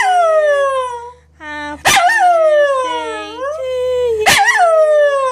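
Scottish terrier howling with its head raised: three howls, each opening with a sharp yip and then sliding down in pitch.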